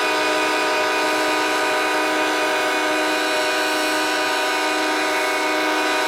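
Several locomotive air horns blowing at once, a loud, steady chord of many overlapping notes held without a break.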